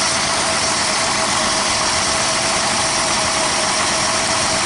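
1967 Mercedes-Benz 250S's twin-carburettor straight-six idling steadily with a constant hiss. It is running far too cold, still at 46 degrees after nearly 45 minutes, and its carburettors are out of adjustment.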